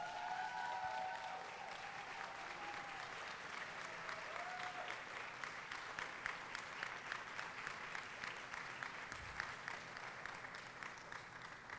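A roomful of people applauding steadily, many hands clapping at once.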